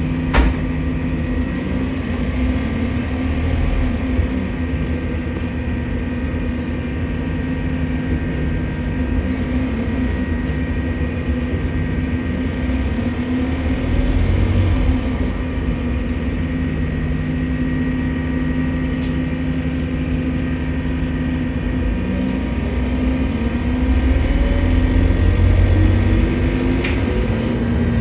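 A London bus heard from on board: its diesel engine and drivetrain running at a steady note under way. In the last few seconds the pitch climbs and it gets a little louder as the bus picks up speed. The uploader reports that this bus's turbo is leaking and making a strange noise.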